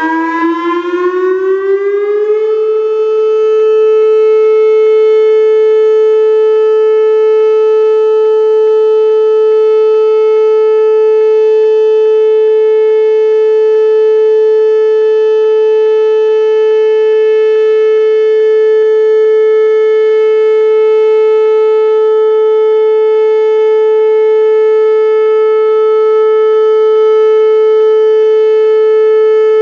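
Whelen WPS-2806 electronic outdoor warning siren sounding a test signal: the tone climbs in pitch over the first couple of seconds, then holds one loud, steady pitch.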